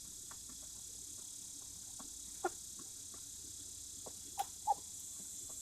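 Chickens giving short, soft calls a few times, three of them louder, about halfway through and near the end, over a steady high drone of insects.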